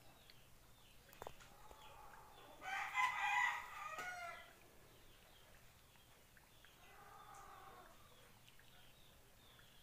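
A rooster crowing once, one long call of about a second and a half, followed a few seconds later by a fainter, shorter call; small birds chirp faintly throughout.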